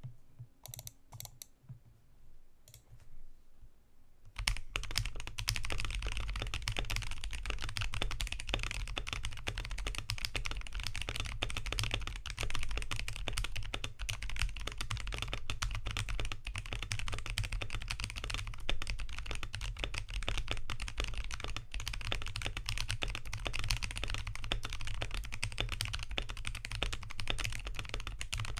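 Typing on a Womier K87 mechanical keyboard with lubed Boba U4T tactile switches, a polycarbonate plate and POM jelly keycaps. A few scattered keystrokes at first, then continuous fast typing from about four seconds in.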